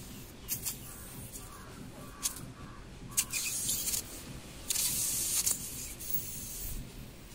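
T-handle reamer of a tubeless tyre puncture kit being worked in and out of the hole in the tread: a few sharp clicks and scrapes, then two bursts of hissing, about three and five seconds in, as air escapes from the punctured tyre past the tool.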